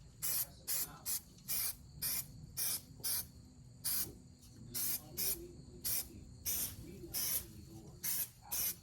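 Bare-metal primer being sprayed in quick short bursts, about fifteen brief hisses at roughly two a second, as bare spots on a truck bed's sheet metal are spot-primed.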